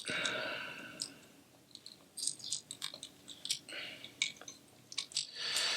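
Small plastic stylus parts being pried apart and handled: a scraping rasp at the start, then scattered clicks, scrapes and rattles.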